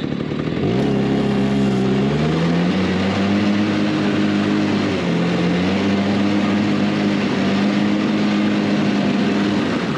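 Arctic Cat Kitty Cat kids' snowmobile engine revving up under throttle about a second in, then running at steady high revs, with a short dip around halfway and easing off near the end.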